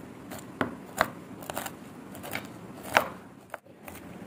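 Large steel kitchen knife chopping hulled sunflower seeds on a wooden cutting board: sharp knocks of the blade striking the board at uneven intervals.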